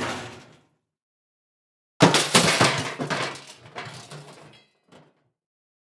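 A crashing, breaking sound effect: several sharp crashes in quick succession, starting suddenly about two seconds in and dying away over two and a half seconds, with a last small clatter. Before it, the end of an earlier noisy effect fades out, and the gaps are dead silent.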